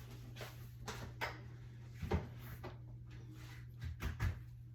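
Plastic juicer parts being handled and set down on a counter: a few scattered knocks and clunks, the loudest about two seconds in and two more close together near the end.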